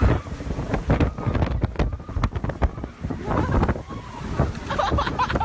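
Violent storm wind buffeting the microphone: a loud, uneven low rumble coming in gust after gust.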